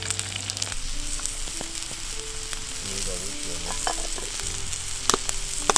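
Food frying over a campfire: a steady sizzle with a few sharp crackles near the end.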